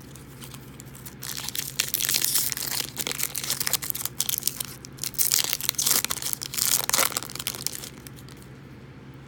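A trading-card pack wrapper being torn open and crumpled, crinkling and crackling, starting about a second in and stopping shortly before the end.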